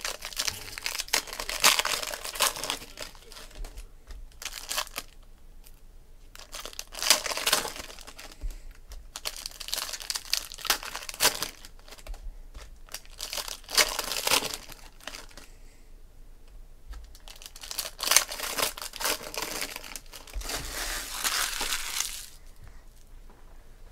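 Foil wrappers of 2016 Panini Prizm Football jumbo card packs crinkling and tearing as they are ripped open by hand. The sound comes in repeated bursts a second or two long and stops a couple of seconds before the end.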